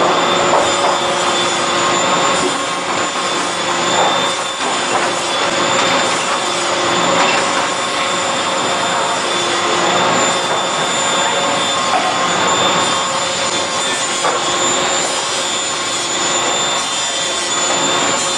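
SFG semi-automatic box gluer running: the steady noise of its motors, belts and rollers as cardboard blanks are fed through and folded, with a constant whine held over the rumble.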